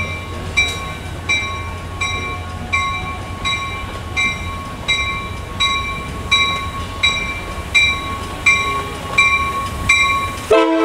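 Amtrak Pacific Surfliner train's bell ringing steadily, about three rings every two seconds, over the low rumble of the train moving through the station. The train's horn starts to blow just at the end.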